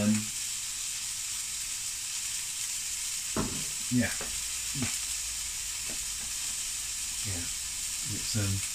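A duck breast sizzling steadily as it fries in a non-stick pan, with a few brief, louder sounds over it.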